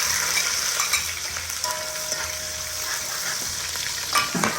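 Onion, garlic and hot pepper frying in hot oil in a cooking pot: a steady, loud sizzle that eases off slightly as it goes on.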